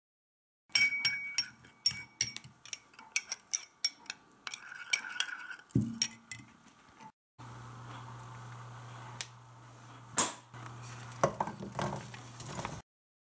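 Metal spoon clinking against a ceramic bowl, a quick run of light clinks as a sauce is stirred. After a break, a steady low hum with a few scrapes and clatters as sliced peppers and carrots are pushed off a plate into a frying pan with a wooden spatula.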